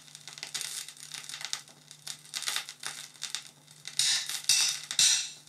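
Vinyl surface noise from a JVC QL-A5 turntable's stylus riding the lead-in groove of an LP: irregular crackle and pops, with a few louder clusters of clicks about four and five seconds in, over a low steady hum.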